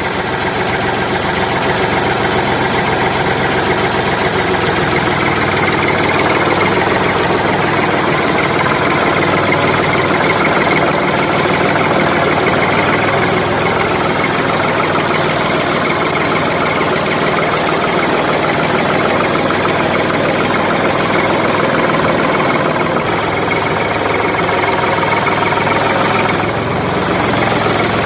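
Tractor engine idling steadily with a knocking clatter, with a slight dip in level near the end.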